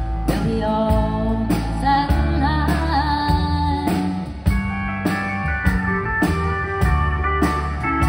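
Live country band playing a slow song with a steady drum beat, electric bass, fiddle and steel guitar, a woman singing the lead over it.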